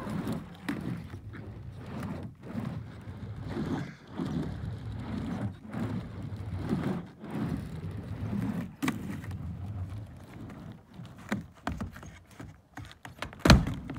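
Skateboard wheels rolling back and forth on a wooden mini ramp, the rumble swelling and fading with each pass, with scattered clacks of the board and trucks. A single loud knock comes near the end.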